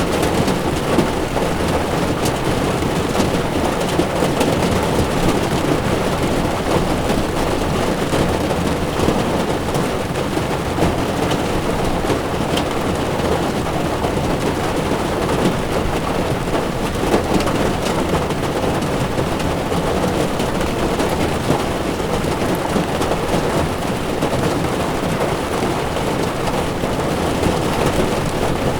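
Heavy rain beating on a car's windshield and body while its tyres hiss over a wet road: a steady, dense rush of noise with a few sharper drop ticks scattered through it.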